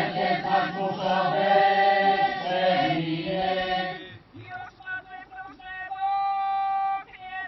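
A group of voices chanting together in a slow, church-like melody; after about four seconds a single voice carries on alone with held notes, one long held note near the end.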